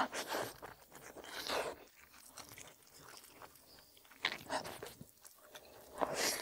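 Close-up eating sounds of a person biting and chewing braised oxtail meat off the bone, in several short bursts with quieter gaps between, picked up close on a clip-on microphone.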